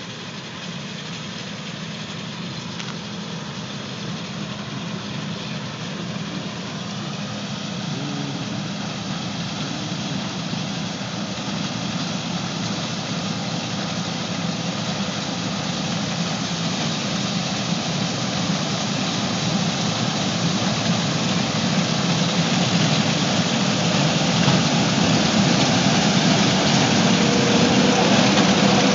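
John Deere combine harvester running, its engine and machinery giving a steady noisy drone with a low hum, growing steadily louder.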